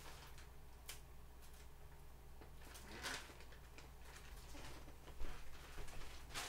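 Faint kitchen handling sounds: a plastic bag of shredded mozzarella rustling, with a few light knocks, the sharpest about five seconds in.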